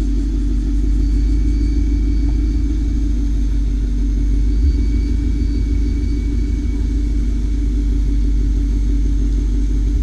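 Steady low rumble of a car engine running, with a short low thump about halfway through.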